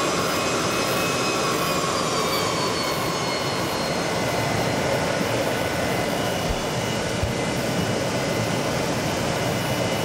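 Pratt & Whitney JT8D turbofan engines of the prototype Boeing 737-100 running, heard as a steady loud noise inside the cockpit. In the first few seconds faint high whines slide slowly downward in pitch.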